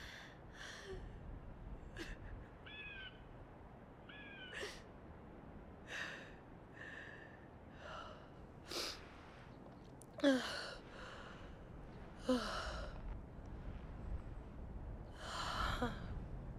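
A young woman crying quietly: a string of shaky, breathy gasps and sighs, some breaking into short falling sobs. Two short chirps come about three and four seconds in.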